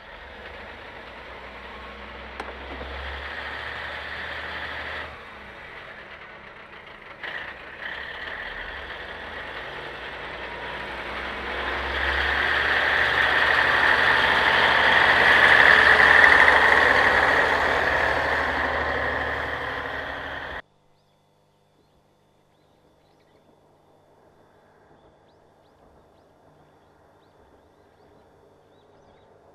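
Diesel railcar's engine running at a station, then working harder as the car pulls away past close by, engine and running noise swelling to a peak about halfway through. The sound cuts off suddenly about two-thirds of the way in, leaving only a faint distant hum.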